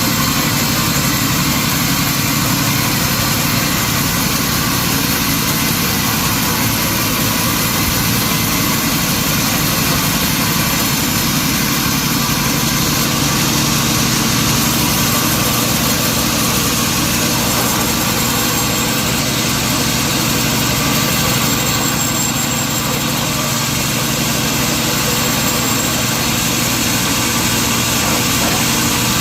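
Sawmill machinery running steadily: a continuous engine and motor drone with a hiss across the range and a low hum, without a break or a clear change in pitch.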